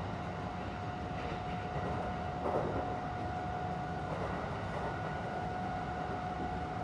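Kintetsu 1620 series electric train running, heard inside the motor car: a low rumble of wheels on rail with a steady motor whine, and a brief louder bump about two and a half seconds in.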